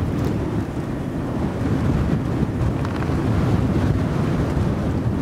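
Strong wind buffeting the camera microphone: a steady low rumble of wind noise.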